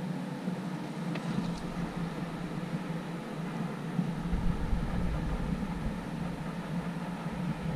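Wind blowing across the microphone: a steady rush, with a low buffeting rumble that sets in from about four seconds in.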